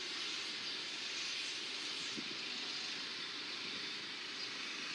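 Steady rushing hiss of a vehicle in motion, heard from on board.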